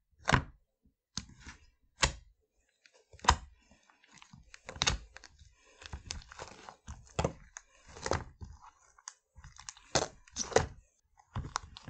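Glue-based slime squished and poked by fingers in a small plastic tub, giving short squelches and pops at irregular intervals, roughly one a second.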